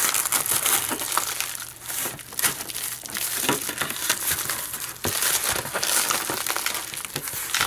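White plastic bubble mailer crinkling and crackling as it is handled, turned over and pressed down, with many small crackles that come and go.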